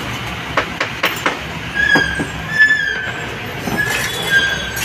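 Small metal parts of a motorcycle steering cone set clicking and clinking on a wooden workbench as they are handled. From about two seconds in, a high-pitched squeal comes and goes in four short stretches and is the loudest sound.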